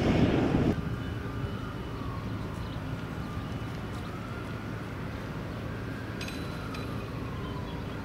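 Distant urban background with a steady low hum and a faint siren wailing slowly up and down. Wind buffets the microphone for the first moment, then drops away.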